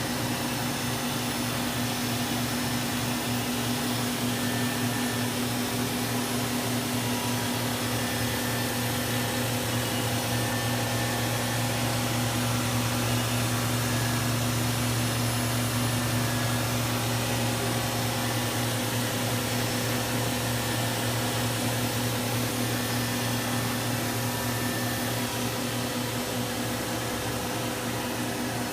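Fadal VMC6030VHT vertical machining center with its spindle running steadily at high speed: an even mechanical hum with a constant low tone over a hiss, swelling slightly midway.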